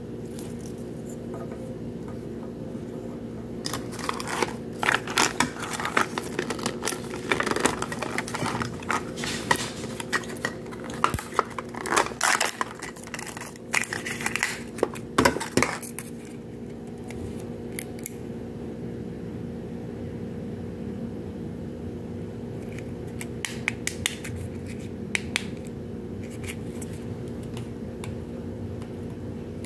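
Hands unwrapping a plastic toy capsule ball and its foil and plastic wrappers: bursts of crinkling, rustling and plastic clicks, busiest through the first half and again briefly later, over a steady low hum.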